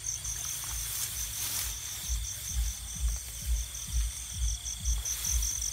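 Crickets chirping in an even, fast pulse, about five pulses a second, over a steady high insect drone. From about two seconds in, low thumps come roughly twice a second.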